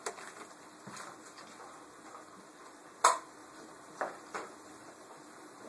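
Wooden spoon knocking against a metal frying pan as beef is chopped up in the pan: a handful of short clacks, the loudest about three seconds in.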